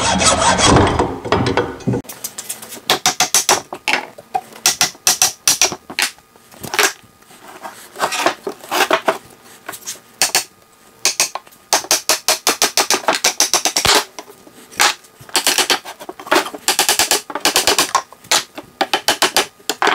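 Hand sawing with a small frame saw for the first two seconds, then repeated mallet blows on the oak chair frame, in quick clusters of sharp knocks, as the old rocker's joints are driven apart.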